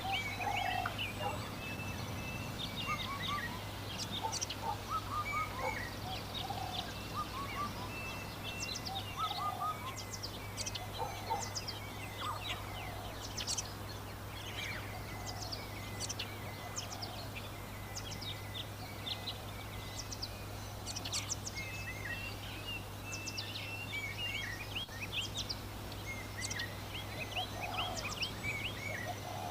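A dense chorus of small birds chirping rapidly, mixed with repeated lower calls from domestic fowl, over a steady low hum.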